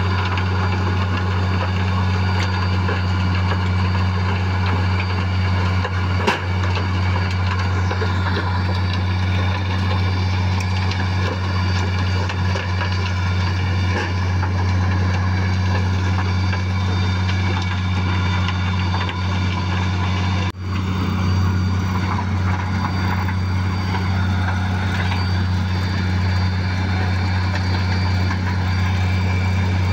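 Heavy diesel engine of a Wirtgen WR 240 soil recycler running steadily with a low drone, with a momentary dip about twenty seconds in.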